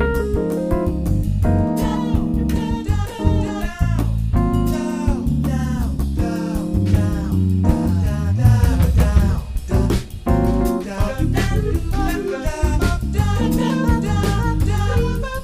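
Soundtrack music: a live soul-jazz band in an instrumental passage, with electric guitar and bass over a steady groove.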